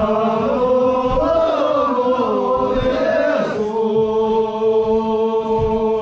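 A group of Sherpa men singing a song together in unison. The melody moves and glides for the first few seconds, then settles into one long held note from about halfway through.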